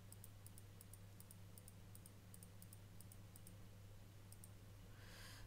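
Faint computer mouse clicks, about three or four a second, each click placing another point of a curve being drawn. They stop about four and a half seconds in, over a low steady hum.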